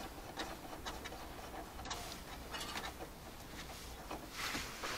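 Faint, scattered clicks and light handling noise of hand tools unscrewing a car's interior trim strip, with a brief rustle near the end.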